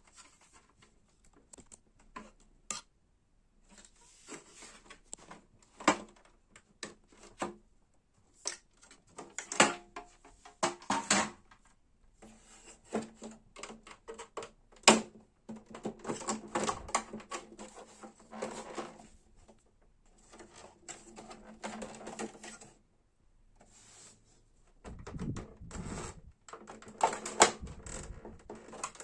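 Irregular clicks, knocks and rattling of a Brother printer's plastic and metal parts being handled and worked on during repair, with short stretches of scraping clatter between sharp clicks.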